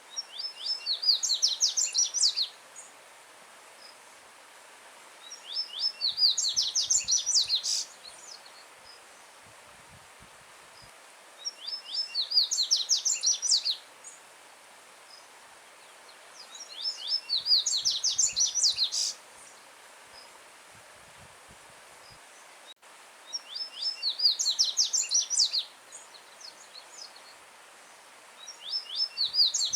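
Yellow-bellied seedeater (coleiro baiano) singing: about six loud phrases, each about two seconds of rapid, sharp high notes, repeated roughly every six seconds, with the last one cut off at the end. Under it runs the steady rush of a stream.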